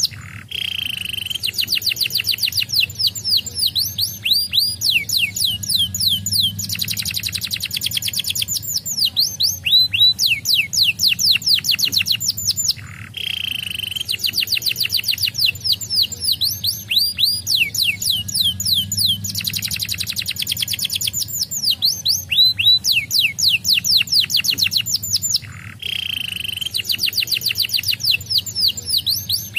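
Canary singing fast trills of rapidly repeated falling notes, with a short lower buzzy phrase between runs. The same sequence of phrases repeats about every 13 seconds.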